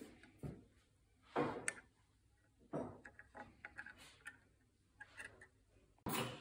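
Faint, irregular clinks and taps of a metal teaspoon against a ceramic coffee mug and crockery while coffee is stirred. A louder rush of noise comes in suddenly near the end.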